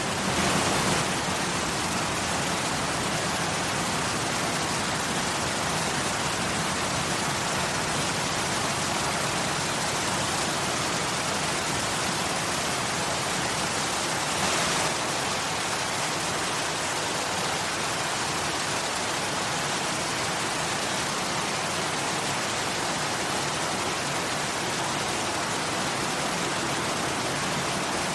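Waterfall: a steady rush of falling water, swelling briefly about a second in and again about halfway through.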